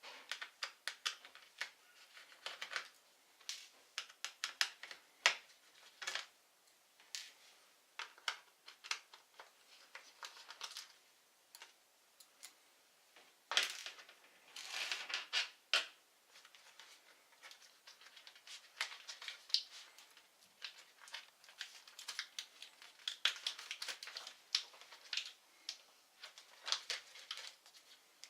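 Irregular light clicks and taps of small tools, screws and plastic laptop parts being handled during disassembly, with a short rustling scrape about fourteen seconds in.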